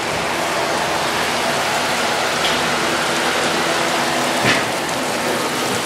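Running water spraying and splashing steadily onto a person's head and face, rinsing off pepper spray.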